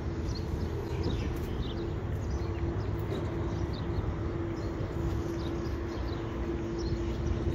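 Outdoor background: a steady low hum over a rumble, with small birds chirping now and then.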